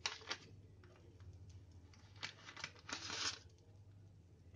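Butter being scraped off its paper wrapper with a spoon into a nonstick frying pan: the paper crinkles and the spoon scrapes and taps lightly, with a louder rustle of the wrapper about three seconds in.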